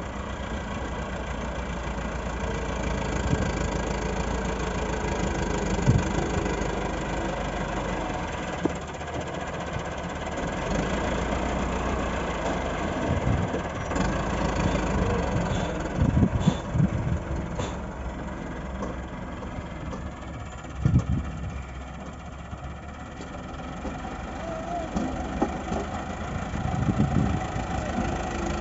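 Engine of heavy earthmoving machinery running steadily, with several heavy low thumps and knocks scattered through.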